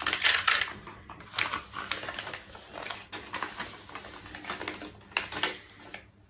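Crinkling of plastic film and packaging and light clicking as a diamond painting canvas and its small bags of drills are handled. It is loudest in the first second, then comes as scattered clicks.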